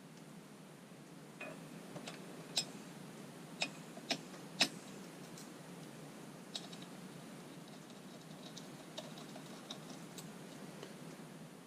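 Scattered sharp clicks and taps of hand tools and small parts being worked on the throttle linkage of a VW AAZ diesel engine, a dozen or so irregular ones, the loudest bunched about a third of the way in.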